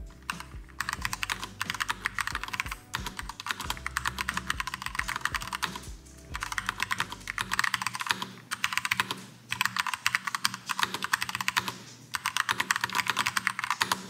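Fast typing on an Accto B705 retro typewriter-style mechanical keyboard, its round keycaps clacking in quick runs of keystrokes separated by brief pauses.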